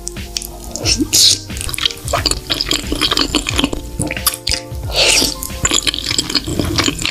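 Close-miked wet slurping and sticky chewing of spaghetti in cream sauce, with many small wet mouth clicks and two short slurps, about a second in and about five seconds in, over background music.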